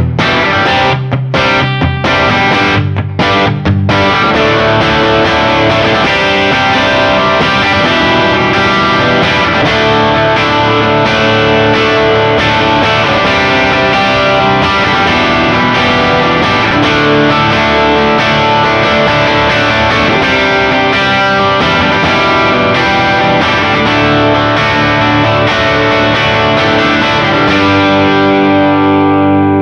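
Distorted electric guitar: a Gibson Les Paul with PAF-style humbucking pickups, played through an overdriven amp. For about the first four seconds it plays short chord stabs with gaps between them, then runs into continuous full-chord playing and ends on a held, ringing chord.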